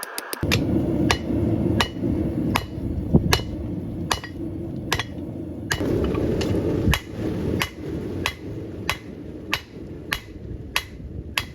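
Blacksmith's hammer striking steel on an anvil in a steady rhythm, about one and a half blows a second, each blow ringing briefly, over a steady low rumble.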